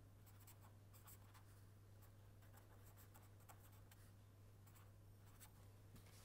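Faint scratching of a marker pen writing a run of short strokes, which stops about five and a half seconds in, over a steady low hum.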